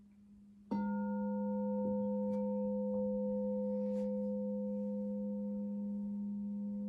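A zeal chakra crystal singing bowl is struck less than a second in and rings on with a steady, pure tone, several pitches sounding together and barely fading.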